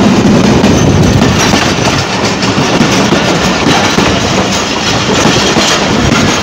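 Pakistani passenger train's coaches rolling past at speed close by: a loud, steady rumble and clatter of wheels on the track.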